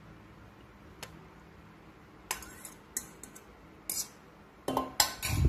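Stainless steel mixing bowl clinking and scraping against the rim of a metal stand-mixer bowl as beaten egg is poured in. A few scattered light clicks, then a louder run of clatter near the end.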